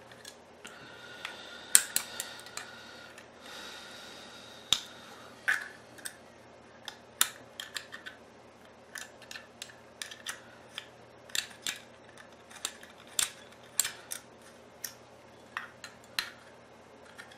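Small Allen key working the screws of a security-camera mount as they are tightened: a run of sharp small clicks, one or two a second, with a brief scraping squeal during the first few seconds.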